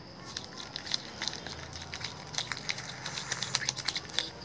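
Plastic spoon stirring glue and slime activator in a small plastic cup: a quick run of sticky clicks and squelches that comes faster and louder in the second half as the mix thickens into slime.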